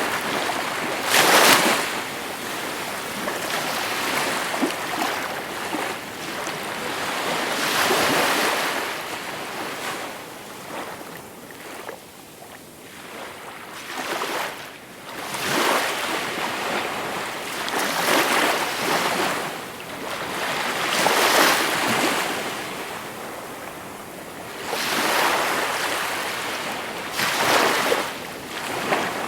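Gentle sea waves breaking and washing ashore: a rushing surge of surf swells and fades every few seconds, about eight times, the loudest about a second in.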